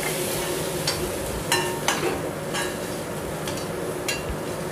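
A perforated metal ladle stirring masala-coated black chickpeas in a black iron kadai, scraping and clinking against the pan several times over a steady frying sizzle.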